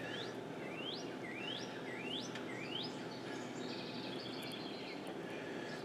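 A songbird singing: five quick rising whistles about half a second apart, then a higher, thin trill, over a low steady outdoor background.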